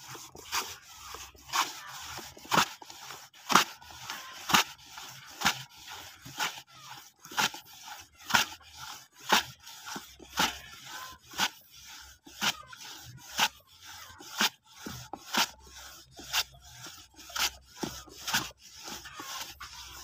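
Kepok bananas being sliced on a pasah, a hand-pushed wooden slicer with a steel blade: a steady rhythm of short scraping cuts, about one a second, each stroke shaving off a thin slice for banana chips.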